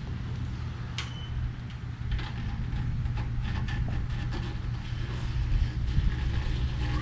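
Razor blade trimming excess screen mesh along a screen frame: faint scratchy cuts and small ticks, over a steady low rumble.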